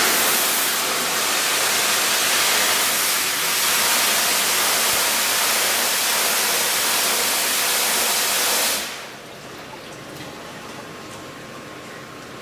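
Water rushing steadily in a fish-culture tank of a recirculating aquaculture system, a loud even hiss that drops off sharply to a quieter hiss about nine seconds in.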